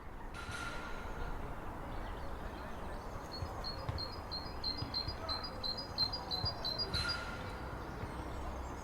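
Great tit singing: a rapid run of repeated high two-note phrases, starting about three seconds in and lasting about three seconds, over a steady low background noise.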